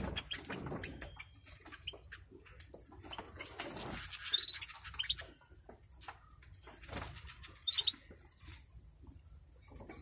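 Caged European goldfinches giving a few short, high chirps, around four seconds in and again near eight seconds, over small clicks and rustles of the birds hopping and pecking at seed.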